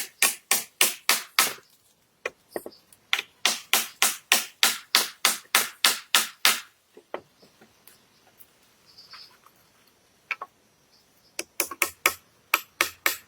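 A hand tool striking wood in quick regular blows, about three a second, in three bouts with a pause of several seconds in the middle.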